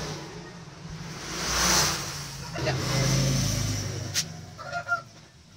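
Road vehicles passing one after another, each swelling up and fading away over a low engine hum, with a single sharp click about four seconds in.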